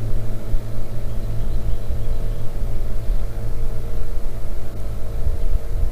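Boat's outboard motor running steadily at slow trolling speed: a continuous low hum over an unsteady low rumble.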